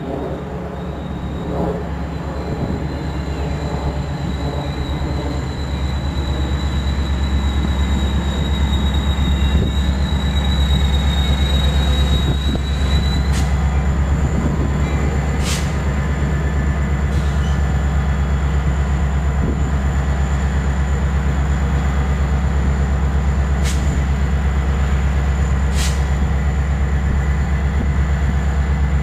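Metra commuter train at a station, its MPI MP36PH-3S diesel locomotive giving a deep steady rumble. A thin high metallic squeal runs through the first dozen seconds and then cuts off, and a few sharp clicks sound later.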